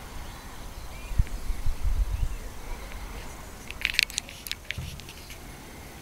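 Low thuds on the microphone in the first couple of seconds. About four seconds in comes a quick clatter of sharp clicks as the chapel's door is opened.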